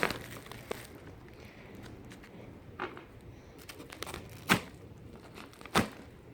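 Insulated shipping packaging being handled and torn open: quiet rustling, with three sharper crinkles about three, four and a half and six seconds in.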